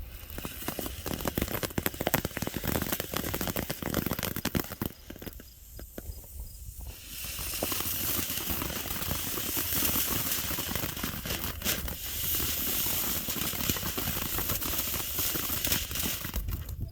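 Small consumer firework fountain spraying sparks: dense crackling that eases off around six seconds in, then a louder steady hiss with crackle from about seven seconds that cuts off suddenly near the end.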